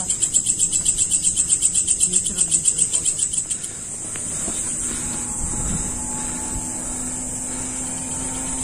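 Night insects calling: a rapid, high, pulsing chirp at about six pulses a second for the first three and a half seconds, then a steady high trill. A faint low steady hum sits beneath in the second half.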